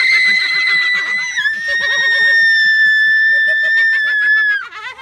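A teenage girl's long, high-pitched scream of fright, held on one steady note that dips slightly about a second and a half in and breaks off near the end.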